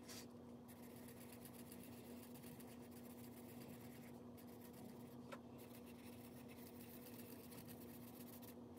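Faint scratching of a pen colouring in a chart, over a steady low hum.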